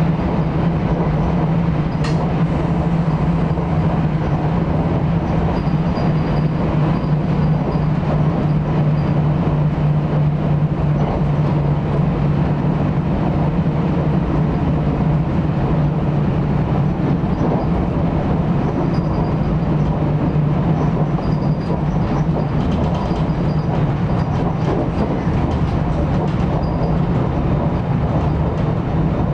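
NJ Transit commuter train running at speed, heard from inside a passenger car: a steady loud rumble of wheels on rail with a constant low drone. There is a single sharp click about two seconds in.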